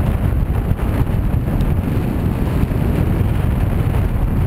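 Wind buffeting the microphone in paraglider flight: a loud, steady low rumble of rushing air.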